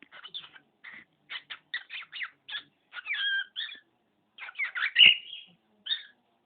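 Pet cockatiel chattering in a quick run of short chirps and scratchy syllables, with a few whistled up-and-down glides. There is a brief pause near the middle, and the loudest, sharpest note comes about five seconds in.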